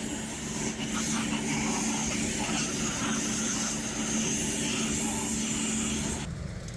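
Water-well drill rig and its air compressor running steadily: a constant engine drone with a steady hiss of air on top. The drone and hiss drop away abruptly near the end.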